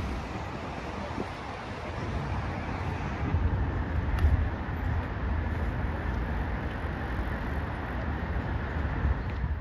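Outdoor city ambience: steady traffic noise, with wind rumbling on the microphone.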